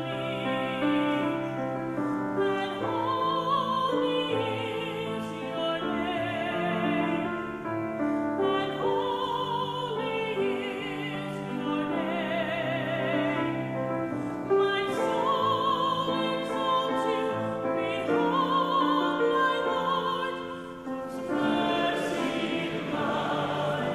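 A sacred song sung with marked vibrato, accompanied by piano, in phrases a couple of seconds long.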